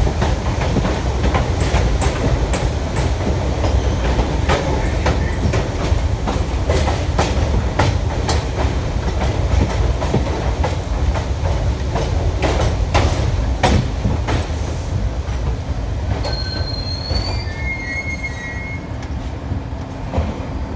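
Rapid-transit train running on elevated track: a steady rumble with sharp clicks of the wheels over rail joints. Past the middle it slows and the rumble fades, and near the end a high squeal sounds as it brakes into a station.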